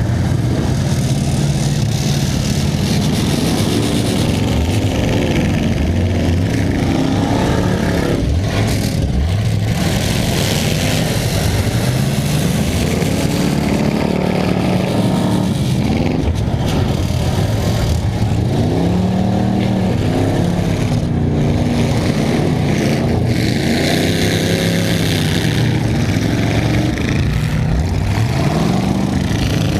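Several demolition derby cars' engines running and revving at once, their pitch rising and falling again and again.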